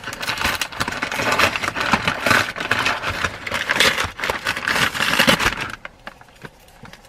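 Crinkling and rustling of a mailed package's paper packaging handled by hand, a dense run of crackles that stops about six seconds in.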